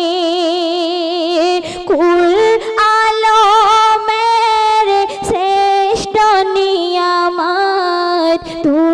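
Female voice singing a Bengali Islamic ghazal, holding long drawn-out notes with a wavering vibrato and gliding between pitches.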